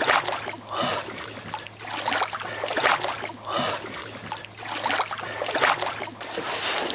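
Splashing and sloshing in shallow, muddy pond water as a man wades and sweeps a hand net after fish, a run of uneven splashes about one a second.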